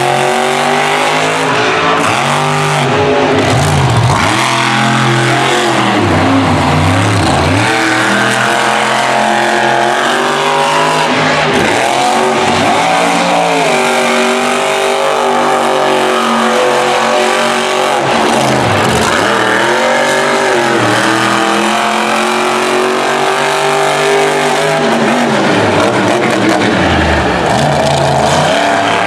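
Monster truck's V8 engine revving hard over and over, its pitch rising and falling in repeated surges as the truck is thrashed around a dirt track.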